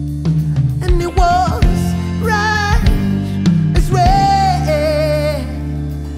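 Live band holding a sustained chord on electric guitar and keys. Over it a singer holds three long wordless notes, the last one wavering and then stepping down in pitch.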